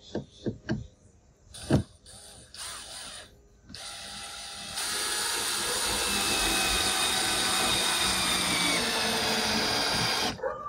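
A few handling clicks and short trigger blips, then from about five seconds in a cordless drill-driver runs steadily under load for about five seconds, driving a #8 deck screw into a eucalyptus pole, its pitch sagging slightly before it stops suddenly.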